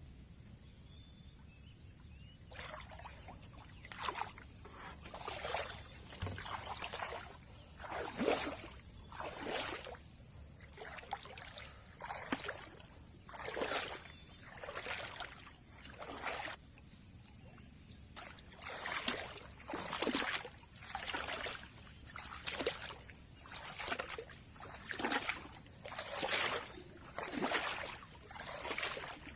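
Rhythmic splashing of water, roughly one splash a second, starting a couple of seconds in, over a steady thin high-pitched whine.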